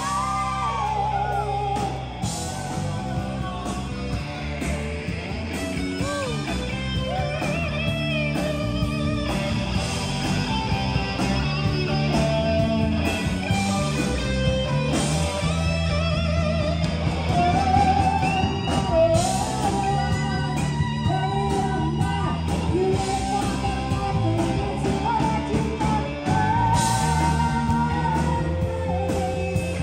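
A live rock band playing loudly: electric guitars, a drum kit and a lead singer.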